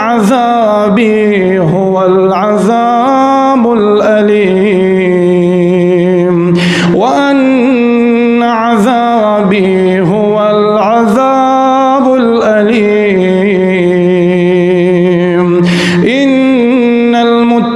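A male reciter chanting the Quran in a slow, melodic style, drawing out long notes with ornamented turns in pitch. There are short breaks about seven seconds in and near the end.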